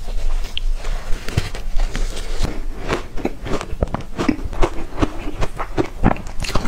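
Close-up eating sounds: a bite into a soft, powder-coated green cake cube followed by chewing, heard as a rapid, irregular run of sharp mouth clicks and smacks.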